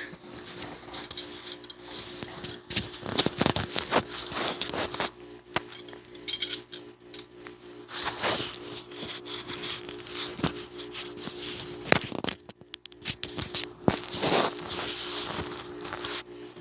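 Metal clicks, scrapes and rattles from the parts of an all-steel PHP MV 9 mm pistol being handled and worked during takedown, over a steady low hum.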